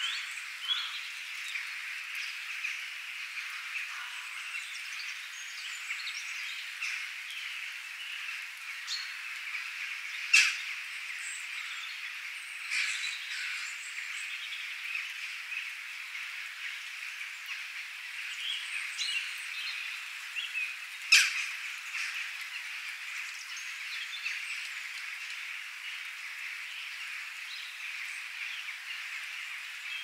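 Steady rain hiss with small birds chirping and calling throughout. Two loud sharp clicks stand out, about a third and two thirds of the way through.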